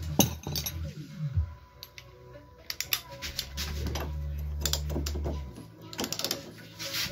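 Short metallic clicks and clinks of a wrench working a nut on the front suspension tension rod of a Lada Priora, in bunches, with background music underneath.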